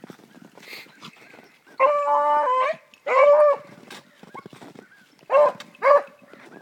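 Hound baying: one long drawn-out bay, a shorter one right after, then two short bays near the end. It is typical of a scent hound giving tongue while trailing.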